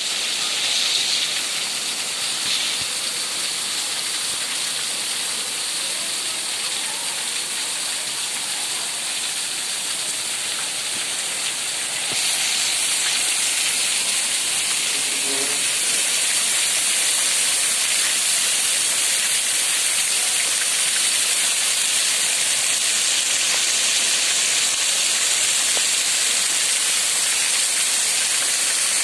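Heavy rain pouring down onto a street, pavement and ledges as a steady hiss that grows louder about twelve seconds in.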